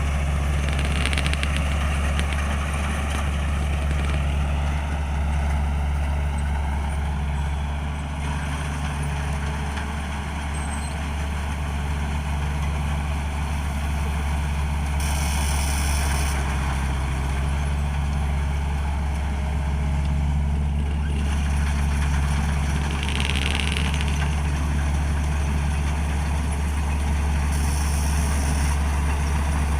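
A 225 HP combine harvester's diesel engine running steadily with a continuous low drone.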